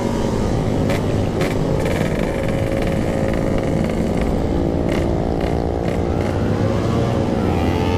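Yamaha RX-King's two-stroke single-cylinder engine running under way with a stock-style aftermarket exhaust, the note easing off and then rising near the end as it picks up speed.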